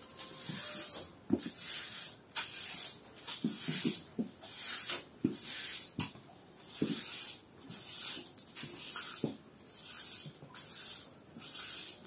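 Push broom's stiff plastic bristles scraping across a rough concrete floor in steady sweeping strokes, about one stroke a second.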